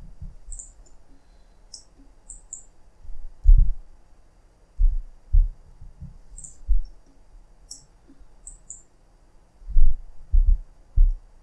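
Computer mouse clicks and keyboard key presses, a dozen or so short sharp clicks scattered irregularly. Several dull low thumps, louder than the clicks, come in between, clustering about a third of the way in and again near the end.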